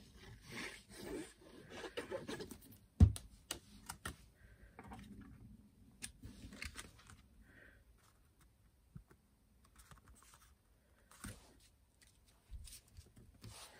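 Faint rustling, scraping and light tapping of card being handled and pressed down by hand on a wooden desk, with one sharp knock about three seconds in and a smaller one near the end.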